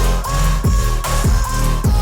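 Background music: an instrumental stretch of an electronic pop song, with deep bass notes that slide sharply downward in a steady rhythm under a held synth melody, and no singing.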